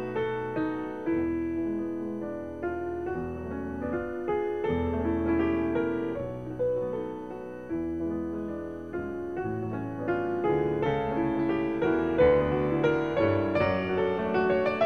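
Background music played on piano, notes struck one after another and left to fade.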